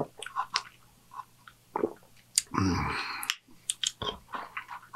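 Close-miked mouth sounds of sipping a milkshake through a straw: short wet clicks and smacks, with one longer noisy sip about halfway through that stops abruptly.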